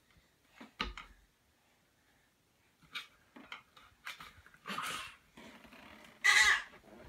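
A toddler's harsh, shrill vocal squeals and grunts, the loudest a rasping squeal about six seconds in, with a soft knock about a second in.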